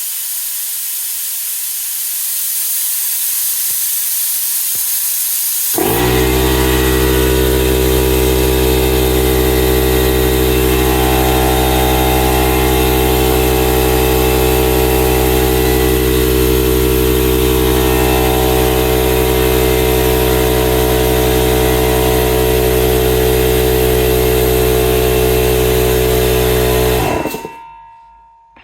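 Compressed air hissing steadily out of the tank of a Stanley 24-litre 8 bar oil-free air compressor as it is bled down. About six seconds in the pressure switch cuts in and the compressor's 1.5 hp motor and pump start abruptly and run steadily, refilling the tank, until they cut out at the 5 bar set point near the end and wind down.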